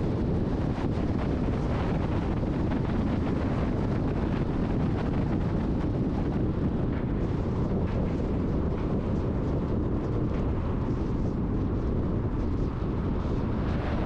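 Steady wind rumble on the microphone over road and engine noise from a vehicle driving at speed, with a brief swell of noise near the end as an oncoming truck passes close by.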